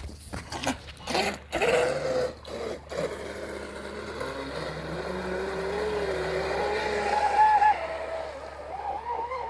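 Traxxas M41 RC boat running on the water under its brushless electric motor: a few short throttle bursts, then a steady motor whine that wavers up and down in pitch as it speeds across the water.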